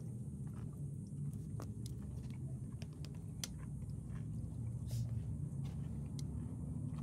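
A small dog chewing food picked off the ground: scattered, irregular crunching clicks. A steady low rumble runs underneath.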